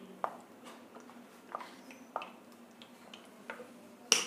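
Light clicks and taps from a plastic cooking-oil bottle being handled as oil is poured into a bowl of flour. A sharper cluster of clicks comes near the end as the bottle's cap goes back on.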